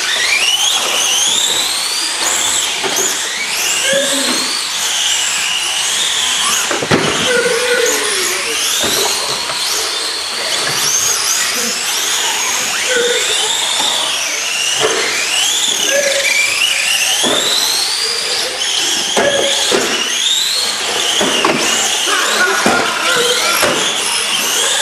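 Several small electric radio-controlled cars racing together, their motors whining up and down in pitch as they speed up and slow down, with occasional short knocks.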